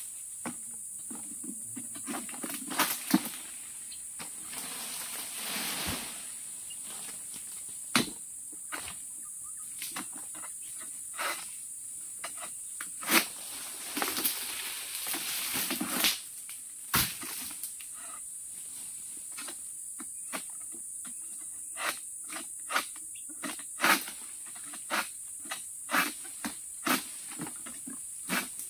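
A long-poled harvesting sickle (egrek) knocking and scraping among the fronds and fruit bunch high on an oil palm. There are scattered sharp knocks, two longer stretches of rustling leaves, and a steady high drone of insects throughout.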